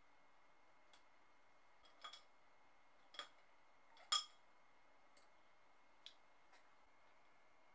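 Wooden paintbrush handles clinking against a glass jar as brushes are lifted out: light clicks about once a second, the loudest and most ringing about four seconds in.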